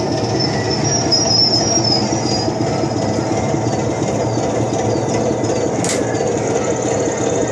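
Recorded train sound effects of a running locomotive and rolling wagons, with a high wheel squeal about a second in and a sharp click near the end, played through transducers on a model railway's back scene that act as the speaker.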